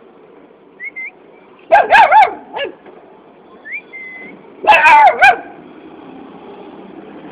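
A puppy begging for a biscuit, giving short high whines and then two quick bursts of shrill yips, about two seconds in and again about five seconds in.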